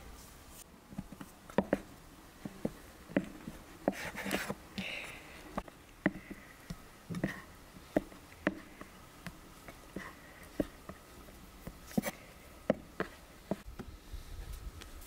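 Knife blade knocking on a wooden board as a mound of dough is cut into pieces: a run of sharp, irregular taps, about one or two a second, that stops near the end.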